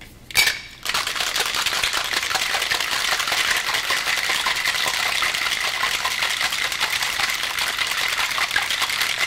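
A single sharp knock as the Boston shaker's metal tin is seated on its glass, then four ice cubes rattling fast and steadily inside the shaker as it is shaken hard to chill a milk punch of bourbon, raspberries, half and half and maple syrup.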